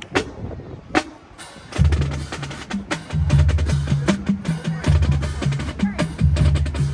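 Marching band drumline: two sharp clicks, then about a second and a half in the drums break into a fast cadence, with pitched bass drums stepping between low notes under rapid snare strokes.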